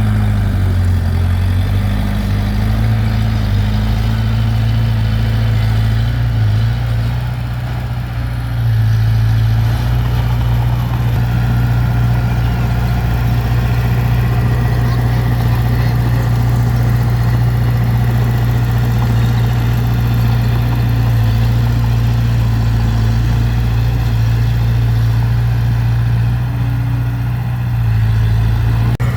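Heavy diesel engine of earthmoving equipment running steadily with a deep, even hum, easing off briefly about a quarter of the way through.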